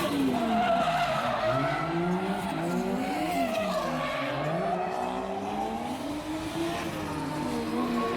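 Drift cars on track: several engines revving up and down as they slide, over the hiss and squeal of spinning tyres.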